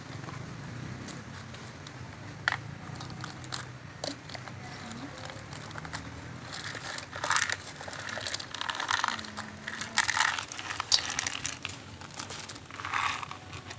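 Eating sounds: crab and raw vegetables being bitten and chewed, crunching and crackling in repeated bursts through the second half, with a few sharp clicks before that.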